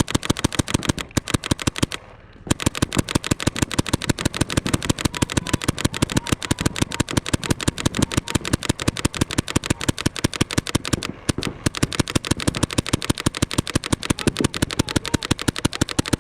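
Paintball markers firing in a rapid, continuous stream of sharp pops, about ten shots a second, with brief pauses about two seconds in and again near eleven seconds.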